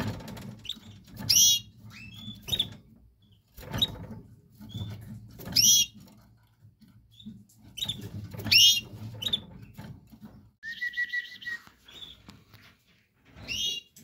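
Canaries giving short, sharp call notes: a few loud downward-sweeping chirps a few seconds apart, clipped chirps between them and one briefly held whistle-like note near the end. Low dull rustles and bumps of movement fall between the calls.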